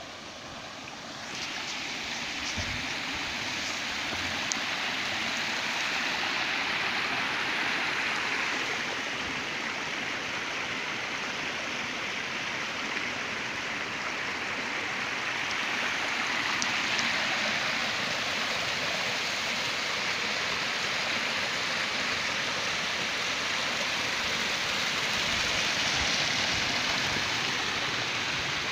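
A stream flowing, a steady rush of running water that gets louder about a second in.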